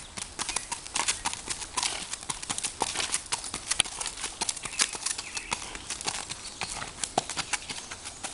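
Hooves of a ridden Norwegian Fjord stallion striking a gravel road: a steady, uneven run of sharp clip-clops.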